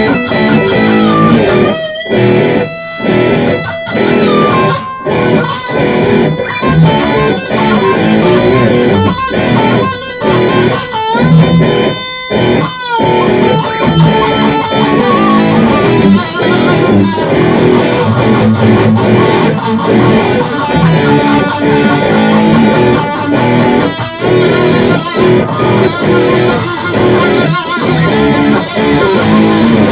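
Poorly recorded hard rock in E minor played on electric guitar: held lead notes with pitch bends over choppy, stop-start strokes, turning into denser continuous playing about halfway through.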